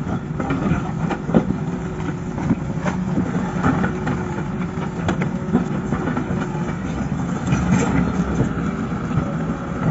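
Excavator's diesel engine running steadily under load, with scattered sharp knocks and clanks from the machine working rock.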